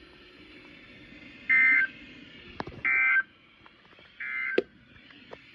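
Emergency Alert System end-of-message (EOM) data bursts on NOAA Weather Radio: three short bursts of two-tone digital screech, about 1.3 seconds apart, closing the Required Weekly Test. A couple of sharp clicks come between and at the end of the bursts.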